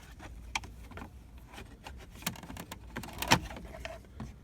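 Plastic steering column cover pieces being handled and pulled apart: a string of light clicks and rattles, with the loudest knock a little past three seconds in.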